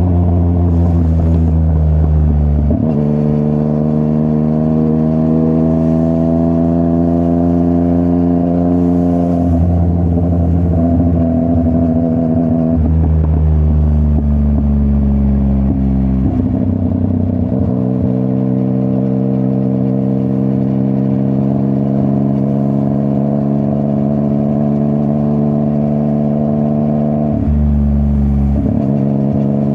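Yamaha MT-09's CP3 three-cylinder engine running through a full Akrapovic exhaust, pulling under load. The pitch climbs steadily over long stretches, with a few short breaks where it drops back.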